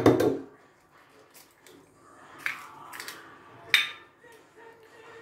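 A hen's egg cracked into a small ceramic bowl: a sharp knock at the start as it is struck, then a few quieter cracks and clicks of shell against the bowl.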